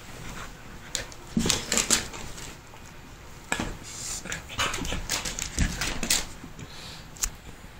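Two dogs play-fighting on a hardwood floor: scuffling and dog sounds in irregular bursts, with short clicks and knocks scattered through.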